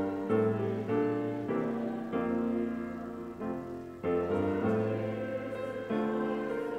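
Grand piano playing slow, held chords, a new chord struck every half second to a second.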